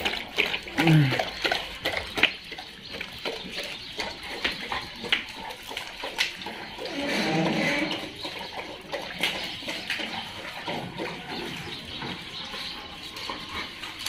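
A pack of dogs eating hard rusks handed out to them: scattered crunching and mouth clicks, with a short dog vocalization about a second in and a longer growl around seven seconds in.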